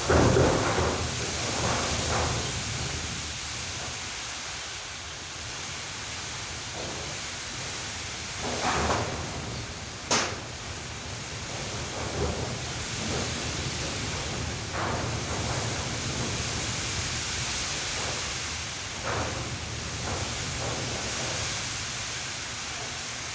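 Strong wind blowing in gusts, with a steady rushing noise that swells and fades several times. A single sharp knock about ten seconds in.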